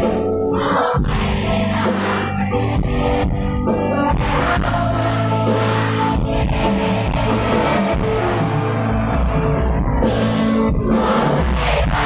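Live band playing a song with singing, electric guitar and drum kit, loud and continuous.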